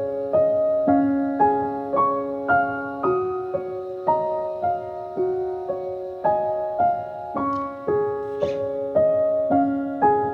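Gentle background music played on piano, single notes and chords struck at about two a second and left to ring.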